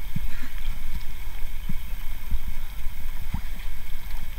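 Water sloshing and lapping in a hot-spring pool, with a steady low rumble of wind on the microphone and a few soft low thumps.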